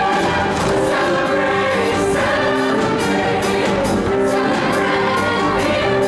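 Mixed show choir singing in harmony over instrumental backing with a steady drum beat.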